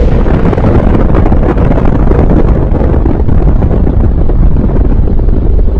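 Nuclear explosion sound effect: a loud, steady low rumble of noise with no clear beats or breaks.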